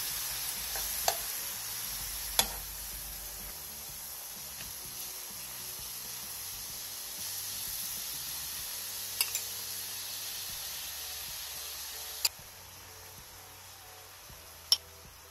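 Enoki mushrooms and sauce sizzling in sesame oil in a frying pan, a steady hiss that quietens a little near the end. Five sharp clinks of a metal spoon against the pan as the sauce is spooned over.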